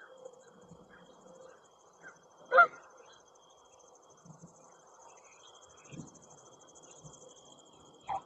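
A Canada goose gives one loud honk about two and a half seconds in, over a steady high-pitched insect chorus that trills throughout; a shorter loud call comes just before the end.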